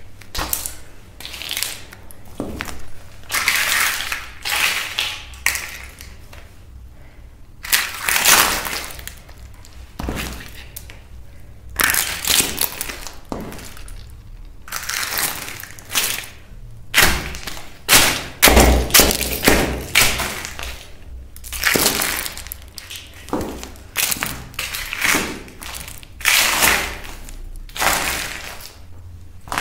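Empty eggshells cracking and crunching under high-heeled shoes on a hard tile floor, in repeated bursts of crackling as the feet step and grind, with heels knocking on the tile.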